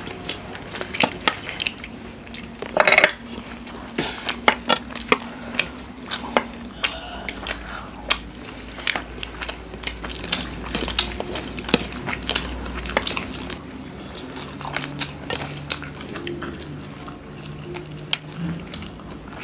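Dishes and cutlery clinking and tapping over and over as a meal is eaten, with one brief louder scrape about three seconds in.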